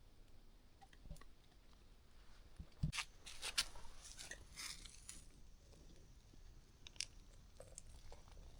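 Faint crunching and snapping of a dog chewing on a wooden stick, in scattered bites, the clearest about three seconds in and again near seven seconds.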